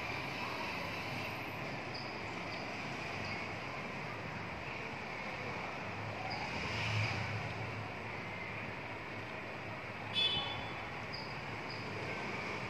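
Steady background noise with one short, high-pitched squeak about ten seconds in.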